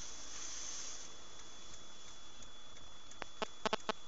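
Steady hiss of a dashcam's own microphone and cabin background, with a thin high whine held throughout. Near the end comes a run of sharp, irregular clicks, several a second.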